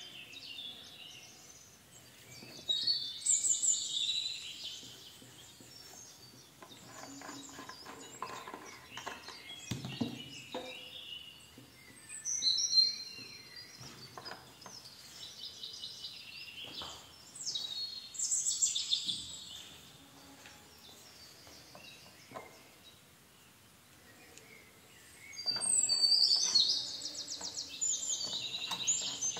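Bird song in four bursts of high, quick chirps and trills, with faint knocks and rustles of handling between them.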